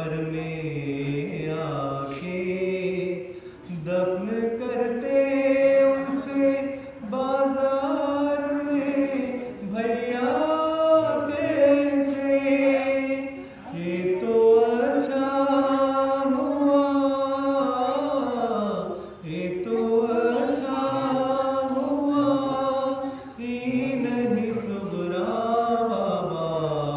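A man chanting an Urdu noha (mourning lament) into a microphone, unaccompanied, in long held notes that rise and fall, with a short breath pause every few seconds.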